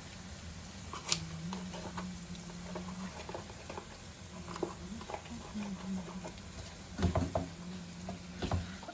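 Light tapping and clicking as a carton of cooking cream is shaken and tipped out over a pan, over a low steady hum, with a few heavier knocks near the end.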